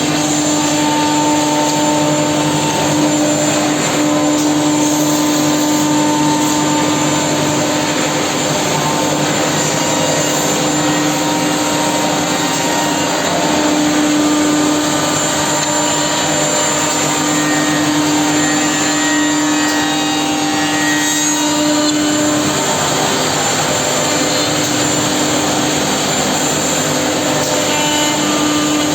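Woodmaster two-head CNC mortising machine running: a loud, steady whining tone over a constant rushing noise, with no break.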